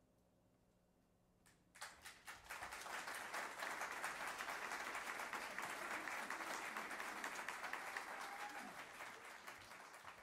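Audience applauding. It starts sharply about two seconds in, after the faint last tones of the music die away, holds, and thins out near the end.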